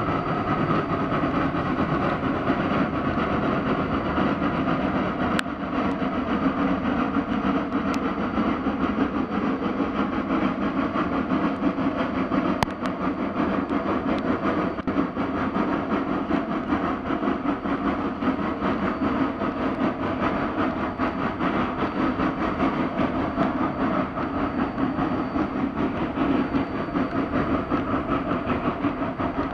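Geared steam locomotive working past at close range, its exhaust chuffing steadily under load along with the running noise of the engine and train.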